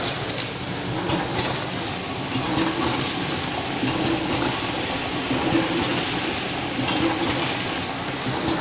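Rose tea pillow-packaging machine running: a steady mechanical rattle with occasional sharper clicks.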